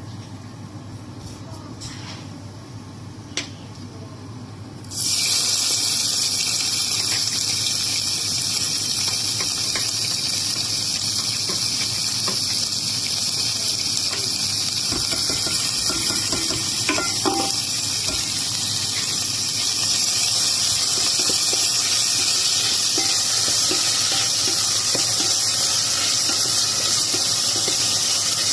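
Diced pork and ginger sizzling in hot oil in a pot: a steady hiss that jumps abruptly louder about five seconds in, as the meat goes into the hot pan.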